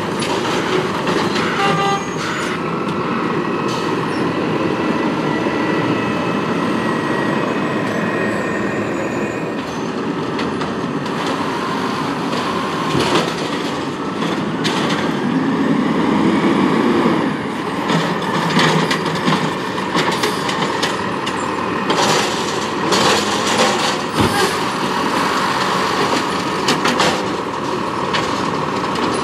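Peterbilt 320 garbage truck with an Amrep automated side-loader working carts: the truck's engine runs steadily and picks up as it drives off, with a steady whine over it and repeated sharp knocks and clanks, most of them in the second half.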